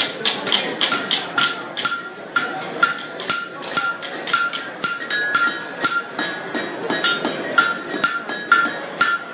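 Hammer blows on a blacksmith's anvil, about three a second, forging hot steel, each blow with a high ring.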